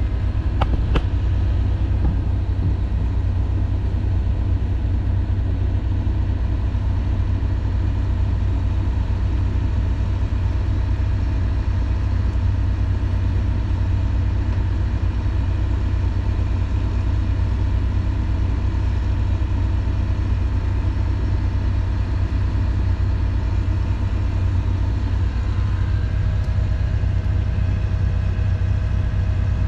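Sailboat's inboard diesel engine running steadily under way, a deep continuous drone. A faint steady higher tone joins near the end.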